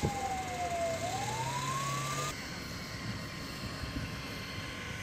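Emergency-vehicle siren wailing in one slow sweep, falling and then rising in pitch, cut off abruptly about two seconds in. After that only a steady faint outdoor noise with a light hum remains.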